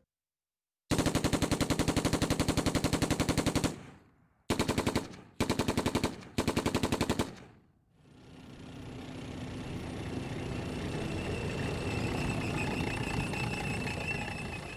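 Machine-gun fire sound effects played through home theatre speakers: a long rapid burst, then three short bursts. Then a rush of noise that slowly swells up and is starting to fade near the end.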